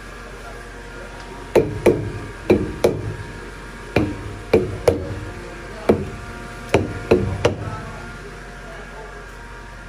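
About eleven sharp knocks struck on a truck's wheels and tyres, mostly in quick pairs, each with a short hollow ring, over a steady low hum.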